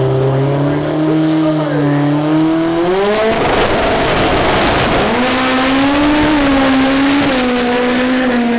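Rear-wheel-drive import drag car's engine held at steady revs on the starting line, then launching about three seconds in with a loud burst of engine and tyre noise. After that a steady high engine note carries on as the car runs down the strip, stepping down once near the end.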